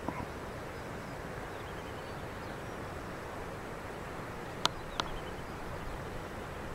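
Steady outdoor background hiss with faint high chirps. Two sharp clicks come about a third of a second apart, a little past two-thirds of the way through.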